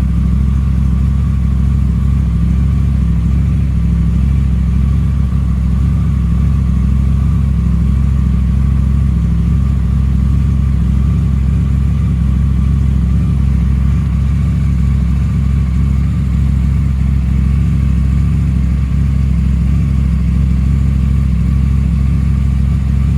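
KTM 990 RC R's parallel-twin engine idling steadily just after an oil change, warming through with its fresh oil.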